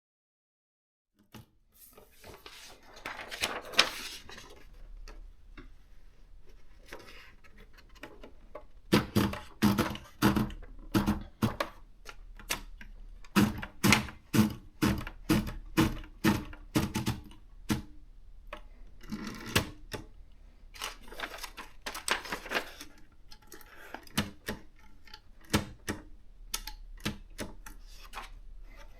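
Maritsa 30 portable manual typewriter being typed on: the typebars strike the platen in quick, irregular runs of sharp clacks with short pauses between them, starting about a second in.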